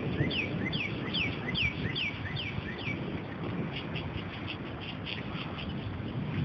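A songbird singing a fast series of clear whistles that slur down in pitch, about two and a half a second, stopping about three seconds in and followed by short high chips, over a steady low rumble.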